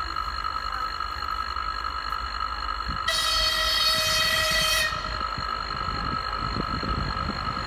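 2TE116U diesel locomotive approaching, sounding its horn once for nearly two seconds about three seconds in. The low rumble of the engine and wheels grows louder near the end.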